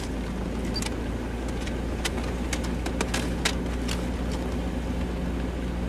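Car cabin noise while driving: a steady low engine and road rumble, with scattered small clicks and knocks. A steady engine hum joins about halfway through.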